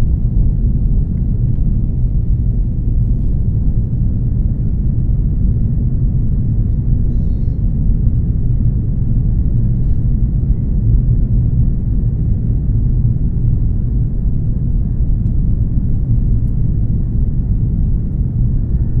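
Airbus A330 cabin noise: a steady, loud low rumble of the airliner's engines and airflow, heard from a window seat.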